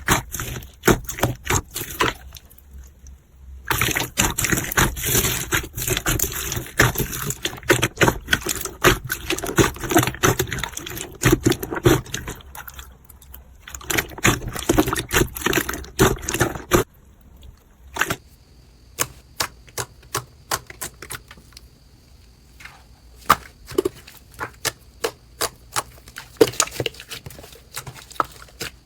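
Slime being squeezed and poked by hand, giving dense crackling clicks and pops, with two short pauses.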